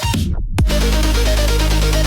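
Electronic dance music: a downward sweep cuts out the track about half a second in, then a heavy sustained bass drops in under a repeating melody.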